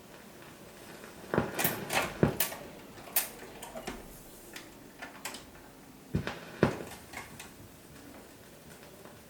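Clicks and knocks of a 78 rpm record being changed on a phonograph between sides, over a faint hiss: several sharp knocks in the first few seconds and two more about six seconds in.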